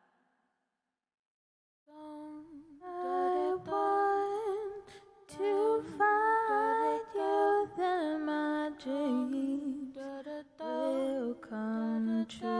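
A woman singing a slow melody with vibrato, starting about two seconds in after a short silence.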